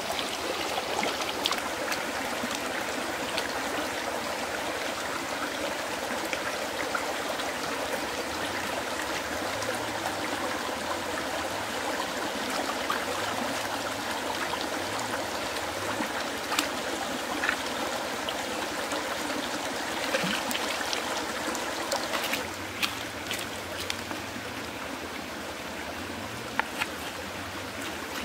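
Shallow rocky stream flowing and trickling steadily, with scattered small clicks and knocks. About three-quarters of the way through the water sound drops a little and a few sharper knocks stand out.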